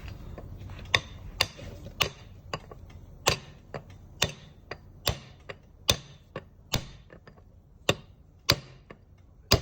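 Sharp metallic clicks and taps from hand tools working on a differential, coming irregularly about one or two a second, with a louder one near the end.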